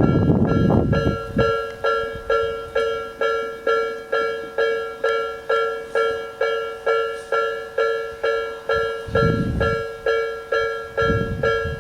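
Electronic warning bell of a Tobu Nikko Line level crossing (Tobu 'sound B' type) ringing steadily, about three dings a second. The rumble of a passing train dies away about a second in, and a low rumble returns around nine seconds in.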